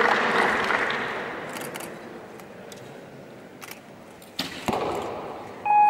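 Crowd noise fading away into a hushed hall, then a recurve bow shot about four seconds in: a sharp snap of the string on release, followed a moment later by the arrow striking the target.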